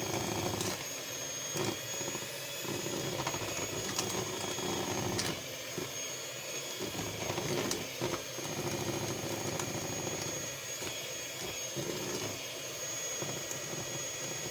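Electric mixer running steadily with a constant whine, beating cake batter while flour is added to it.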